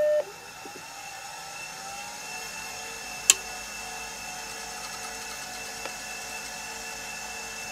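A Conner 40 MB SCSI hard drive spinning up, its whine rising over the first couple of seconds and then holding steady, with one sharp click about three seconds in. The drive keeps running instead of spinning down, which the owner puts down to gummed-up bearings freeing themselves.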